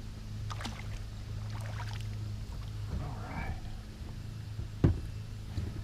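Steady low hum on a kayak, with scattered light clicks and knocks of handling and one sharper knock near the end.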